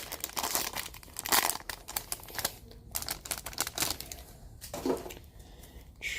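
Foil wrapper of an Upper Deck Allure hockey card pack crinkling and tearing as it is opened, in irregular crackles with a couple of louder rips.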